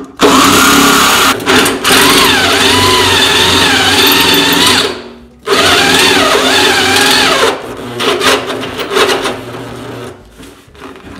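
Handheld electric drill boring through a tractor's steel fender: the motor's whine rises and falls in pitch as the bit bites under load. It stops briefly about five seconds in, runs again, and drops to quieter, broken drilling in the last few seconds.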